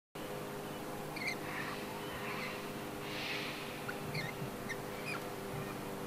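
A few short, high bird chirps scattered through, with some soft hissy swells, over a steady low hum.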